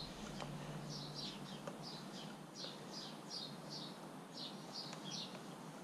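A bird chirping over and over, faintly: short high chirps at about three a second.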